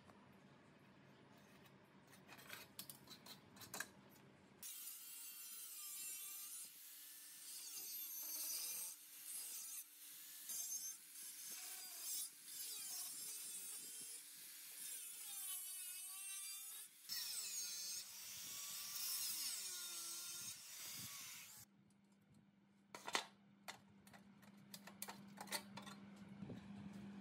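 Handheld angle grinder cutting through the rusted sheet-steel fan cover of an old three-phase electric motor. The pitch wavers as the disc bites into the metal, with a short break partway through. The grinding starts about five seconds in and stops several seconds before the end, with light taps and clicks of the metal being handled before and after.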